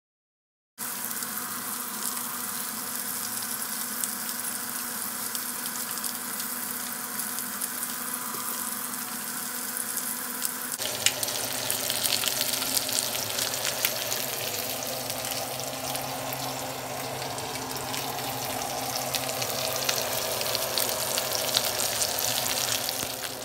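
Spice-rubbed beef short ribs searing in butter in a hot skillet: a steady sizzle thick with small crackles and pops. It becomes louder and busier about eleven seconds in.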